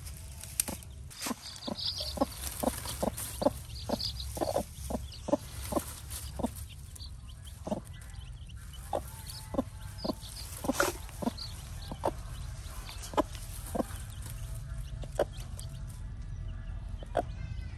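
Hen clucking to her chicks in a run of short, low clucks, two or three a second at first and thinning out later, with a few high chick peeps in between.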